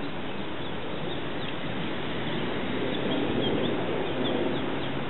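Mallard ducklings peeping: many short, high, falling peeps over a steady outdoor hiss.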